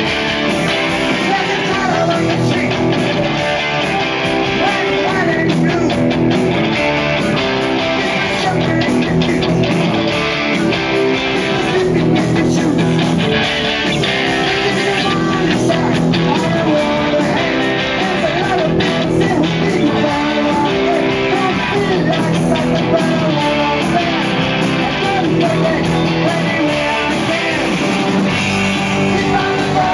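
Live rock band playing loudly: electric guitars, bass guitar and drums, with a singer's voice over them.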